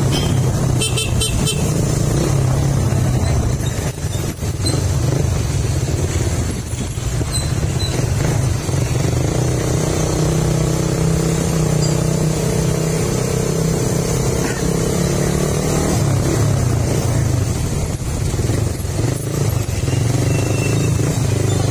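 Motorcycle engine running steadily at low town speed, heard from the rider's own bike while riding, with other motorcycles close by. Brief short high beeps about a second in.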